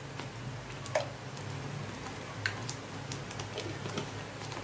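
Thick curry gravy starting to simmer in a kadhai, with scattered soft pops and ticks of bursting bubbles over a low steady hum; one louder pop about a second in.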